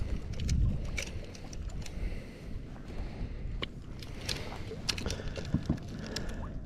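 Wind buffeting the microphone, heaviest in the first second, with scattered sharp clicks and rattles of fishing gear, a lip grip and a handheld fish scale, being handled in a kayak.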